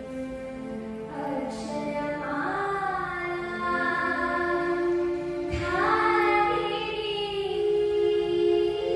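A woman singing a Kannada devotional song in long, gliding held notes over sustained electronic keyboard tones. The voice comes in about a second in and starts a new phrase about halfway through.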